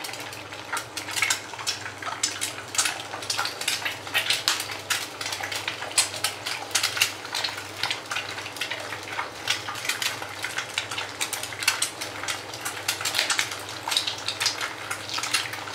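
Eggs frying in hot oil in a nonstick pan, sizzling with a steady run of sharp crackles and pops, while more eggs are cracked and dropped into the pan.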